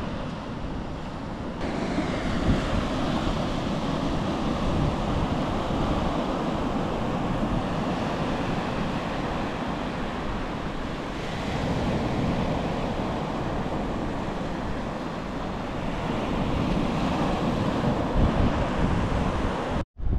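Steady rush of water with wind buffeting the microphone, briefly cutting out just before the end.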